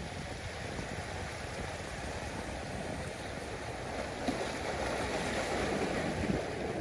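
Ocean waves washing in, a steady rush of water that swells slightly about four seconds in.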